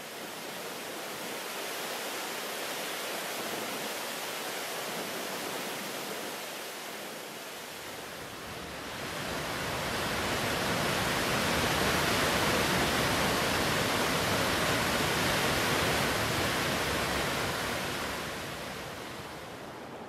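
Waterfall on a mountain stream: a steady rush of falling water that grows louder and fuller about eight seconds in, then eases off near the end.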